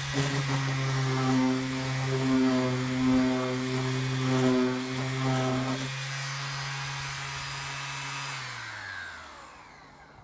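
Battery-powered angle grinder running against sheet metal, trimming the rough edge of a cut roof hole, its pitch wavering under load for about six seconds. It then runs free and spins down with a falling whine near the end as it is switched off.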